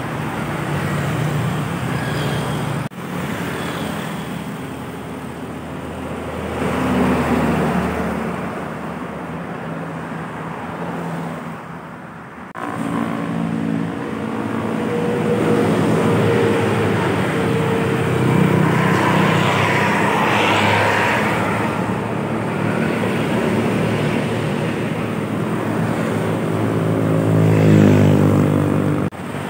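Road traffic passing close by: heavy trucks, a bus, cars and motorcycles with engines running and tyres on asphalt. The sound breaks off and changes abruptly twice, and an engine note stands out clearly near the end.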